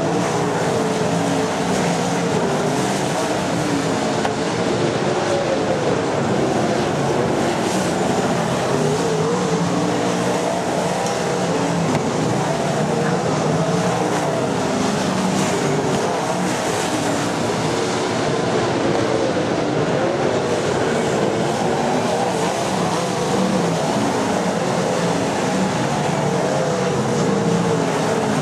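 Several winged sprint cars' V8 engines running together around a dirt oval, a steady loud din whose overlapping pitches waver up and down as the cars circle.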